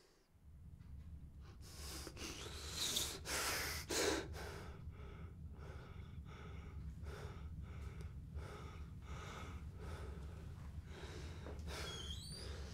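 A beaten, injured man's heavy, ragged breathing: repeated gasping breaths, loudest about two to four seconds in, over a steady low hum.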